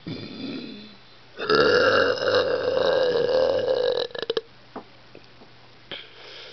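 A deliberate, drawn-out burp starting about a second and a half in and lasting about two and a half seconds at a steady pitch, after a brief softer sound at the start.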